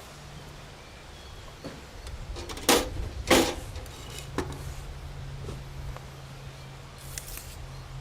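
Handling noise: a few light knocks, with two sharp clatters close together about three seconds in.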